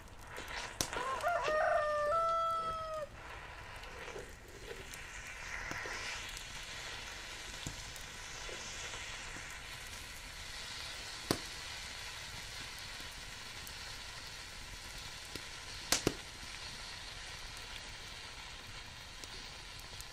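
A rooster crows once, starting about a second in and lasting about two seconds; it is the loudest sound here. After it, a steady faint hiss of food sizzling in a cast iron pan over an open fire, with two sharp clicks of a metal fork against the pan.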